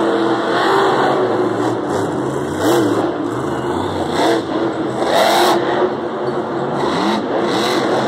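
Monster truck's supercharged V8 engine revving hard, its pitch climbing and dropping over and over, with several sharp louder bursts of throttle.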